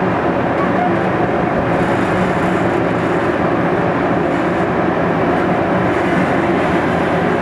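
Diesel engine of an MST 300LC 30-ton crawler excavator running steadily as the machine is driven down trailer ramps.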